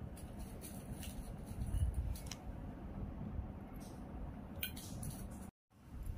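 Faint handling noises of hands working with a zip and crocheted fabric: a few soft clicks and rustles over a steady low room hum. The sound cuts out for a moment near the end.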